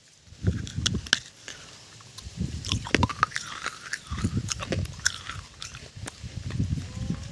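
Close-miked crunchy biting and chewing of a kulhad (clay tea cup) piece, coming in four or five bouts of sharp cracks and grinding with short pauses between them.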